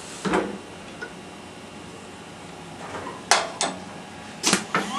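Automated glass lathe's mechanism starting its cycle: a knock soon after the start, then a pair of metal clunks past the middle and a quick run of clicks near the end as the swing arm comes down.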